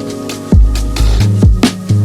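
Background electronic music with a heavy beat: deep bass notes that drop in pitch, and sharp drum hits.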